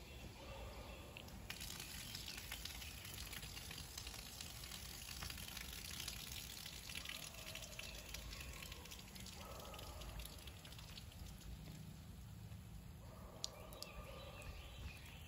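Foam fizzing and hissing as a model volcano erupts: a sharp hiss comes in about a second and a half in and dies down over the next several seconds.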